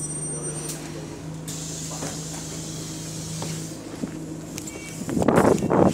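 Enviro200 bus diesel engine idling steadily on its high idle, with a long air hiss from about a second and a half in as the doors work. The engine hum fades out just before four seconds. About five seconds in, loud wind buffeting on the microphone takes over.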